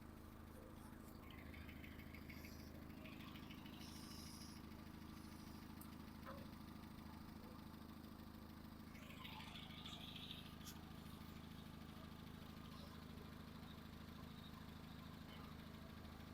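Car engine idling steadily, heard faintly.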